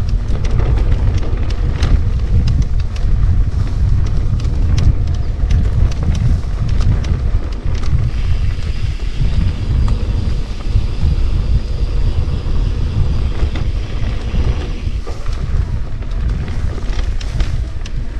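Wind buffeting the microphone of a camera riding along on an electric mountain bike descending a trail, with scattered clicks and rattles from the bike over rough ground. A faint high whine comes in for several seconds midway.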